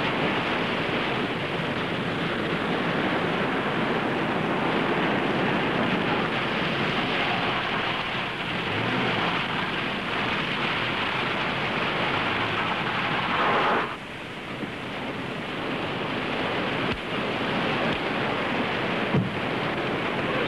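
Steady rushing roar of ocean surf, briefly dropping in level partway through, with a short sharp knock near the end.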